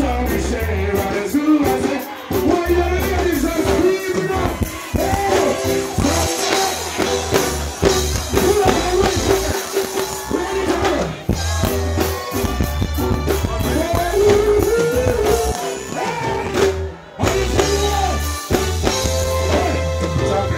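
Live reggae music through a loud sound system: a vocalist sings over a heavy bass line and drums. The music drops out for a moment late on, then comes back in.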